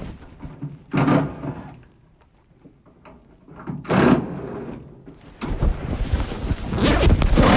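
Parts of a gas furnace being handled and pulled apart during disassembly: a sharp clunk about a second in, another around four seconds, then a busy run of scraping and rattling near the end.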